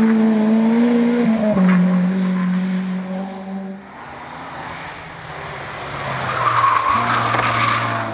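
Honda Civic race car's engine at high revs, its note rising slightly then dropping about a second and a half in, fading away near four seconds. After a quieter stretch, tyre squeal swells near the seven-second mark as a second race car, a BMW 3 Series (E30), comes in with a lower engine note.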